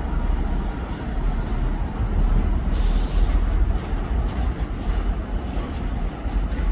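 Class 158 diesel multiple unit running with a steady low rumble, with a short hiss of air about three seconds in.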